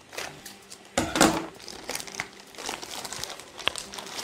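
Plastic product packaging crinkling and rustling as it is handled and pulled open by hand, with a loud burst of crinkling about a second in.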